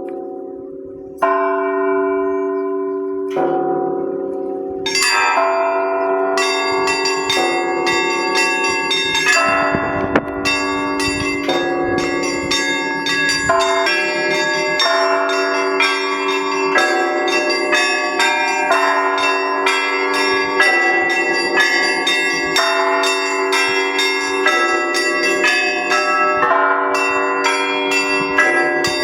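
Russian Orthodox church bells rung on a zvonnitsa. At first a few single strokes of the larger bells ring out and die away. About five seconds in, the small bells join in a rapid, continuous peal over the steady ringing of the bigger bells.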